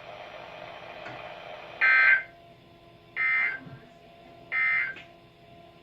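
NOAA Weather Radio SAME end-of-message code: three short bursts of digital data tones about a second and a half apart, closing the broadcast warning. Faint receiver hiss lies between the bursts.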